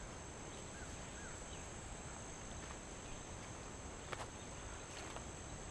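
Steady high-pitched drone of an insect chorus, with a few faint bird chirps and a couple of short clicks about four and five seconds in.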